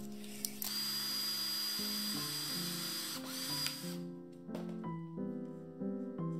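Cordless drill running for about three seconds with a steady high whine, boring into a pine dowel at its pencil mark, easing off for a moment near the end.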